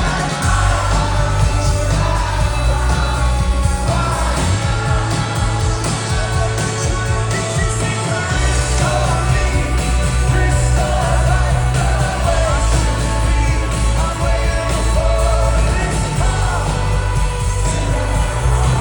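Live indie rock band playing loudly, with a lead singer's voice over heavy, sustained bass.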